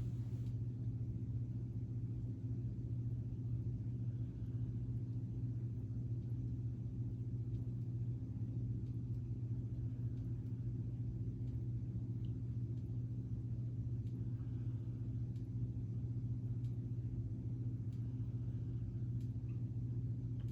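Small electric motor of a K'nex swinging-ship ride model running, a steady low hum with a few faint ticks.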